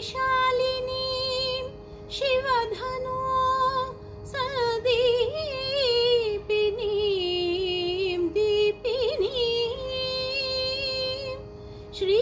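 A woman singing a Sanskrit devotional hymn solo, in long held melodic phrases with wavering, ornamented pitch bends and short breaths between them. A faint steady drone sounds underneath.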